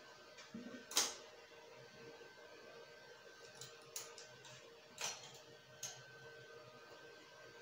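Light clicks and taps from hands and a small hand tool working among the metal latch needles of a flatbed knitting machine. The loudest is about a second in, and three or four softer ones come between about four and six seconds, over a faint steady hum.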